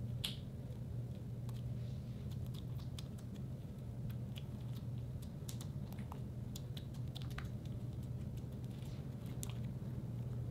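White slime being pressed, folded and kneaded by hand, giving scattered small sticky clicks and squelches over a steady low hum.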